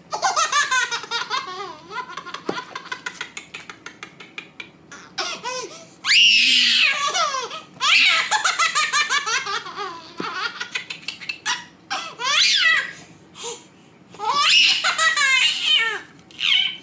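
A baby laughing hard, in long runs of quick pulses broken by high squealing peaks.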